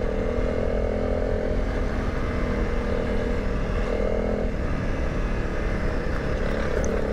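Honda CRF300 Rally's single-cylinder four-stroke engine running steadily at cruising speed on a gravel road, with wind and tyre noise underneath.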